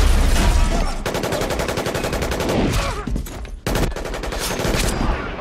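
Movie action sound effects: a deep rumbling blast in the first second, then about a second and a half of rapid automatic gunfire, followed by scattered shots and sharp impacts.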